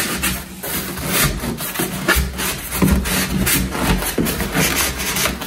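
Styrofoam packaging insert scraping and rubbing against the inside of a tight cardboard box as it is worked out by hand, in a run of irregular scrapes and squeaks.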